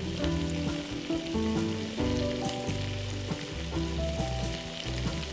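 Pork adobo bubbling and sizzling in a pan as it simmers in its cornstarch-thickened sauce, over light background music.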